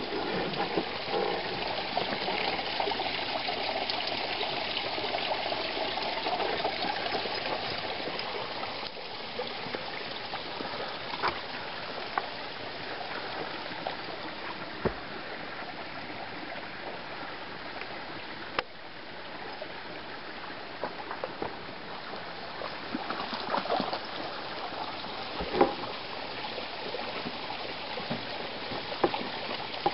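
A creek running steadily, a little louder for the first several seconds, with a few scattered light knocks and clicks.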